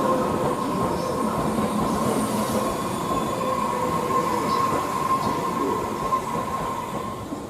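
Electric commuter train rolling into a station platform: rumbling wheels on the rails with a steady high wheel squeal that fades out about six seconds in as the train slows.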